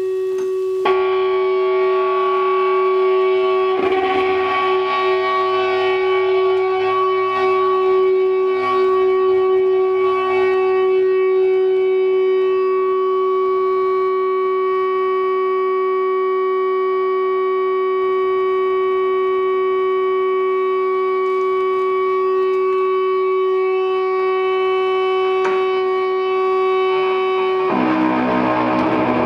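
Electric guitar feedback through amplifiers, run through a delay and reverb: a layered drone of several steady sustained tones. It swells louder about a second in, and near the end the tones change to a lower, denser mix.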